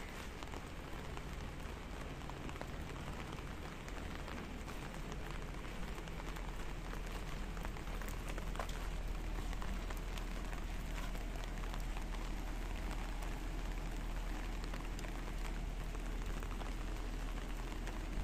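Drizzle falling on a village lane and its surfaces: a steady patter of many small raindrops, with a low rumble underneath.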